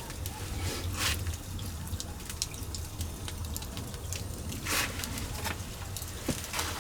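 Wood and charcoal fire in a hearth crackling, with irregular sharp pops and short hisses as Spanish mackerel grills on a grate over it.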